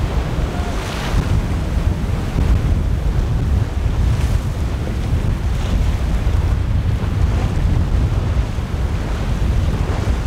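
Strong wind buffeting the microphone over the wash of a rough sea and breaking waves, with a few short hissing splashes of spray.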